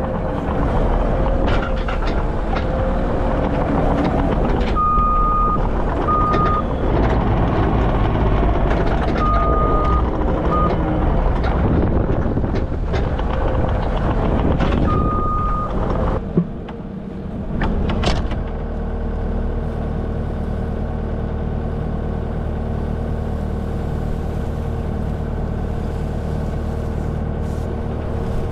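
New Holland compact track loader (skid steer) running as it moves a round hay bale, its reversing alarm beeping in several short runs. About sixteen seconds in the engine note drops, a knock is heard, and the machine then settles into a steady idle.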